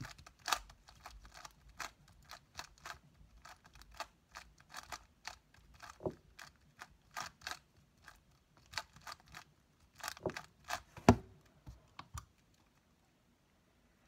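A stickerless 3x3 speed cube being turned very fast by hand: a rapid, uneven run of quick plastic clicks and clacks, with a heavier knock about eleven seconds in. The turning stops about twelve seconds in.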